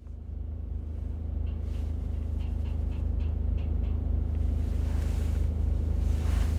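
Steady low rumble of a car, heard from inside the cabin, with a few faint ticks in the middle.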